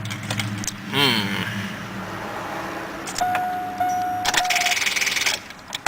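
A car engine running roughly with a steady low hum, with a dashboard warning chime sounding a steady tone for about a second and a half in the second half. The car has just lit its check engine light and has a tapping noise, and the owner suspects a dead battery.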